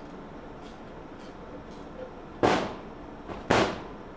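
Two loud, sharp knocks about a second apart, each dying away quickly, during hands-on work removing the starter-generator from a two-stroke golf cart engine.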